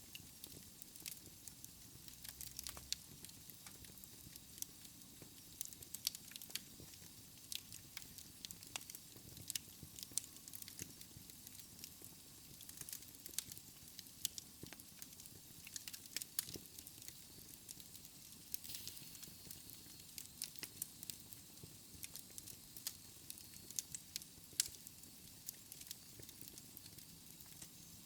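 Wood fire crackling in a fireplace: irregular sharp pops and snaps over a soft steady hiss of the flames.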